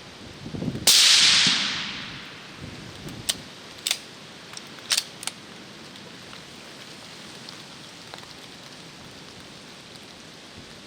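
A single rifle shot about a second in, the loudest thing here, its report dying away over about a second; a few short sharp clicks follow a couple of seconds later, with steady rain hiss underneath.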